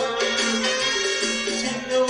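Music playing, with held pitched notes and no speech.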